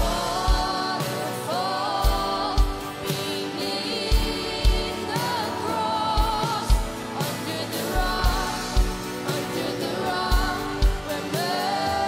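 Live contemporary worship song: a female lead vocal with backing singers over a band, with a steady kick drum beat.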